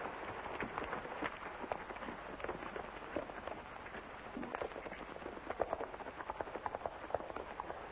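Horses' hooves clopping irregularly on hard, stony ground as the horses move about and walk off, over the steady hiss of an old film soundtrack.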